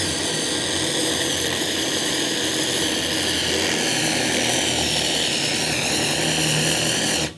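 Electric mixer running steadily, working butter into flour, egg and brown sugar for an apple pie dough. It switches off abruptly near the end.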